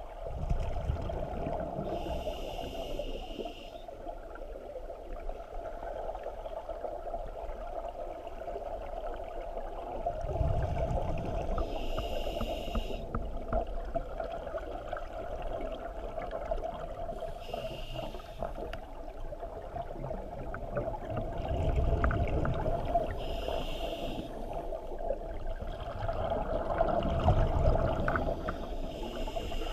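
Scuba diver breathing through a regulator underwater: a short hiss with each inhale and a low bubbling rumble of exhaled bubbles, repeating every five or six seconds over a steady hum.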